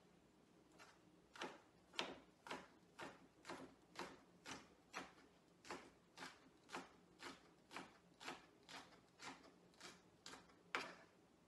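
Kitchen knife slicing bok choy on a wooden cutting board: a steady, light knock of the blade on the board about twice a second.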